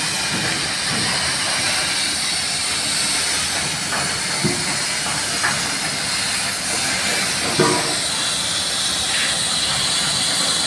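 Shipyard work noise: a steady hiss with a few short knocks, the loudest about three quarters of the way through.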